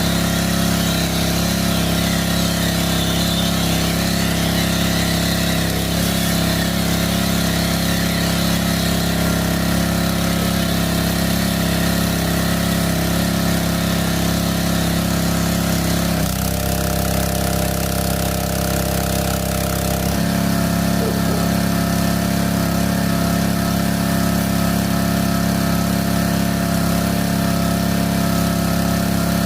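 Small gasoline pressure-washer engine running steadily, its note changing for about four seconds midway as the load on the pump shifts.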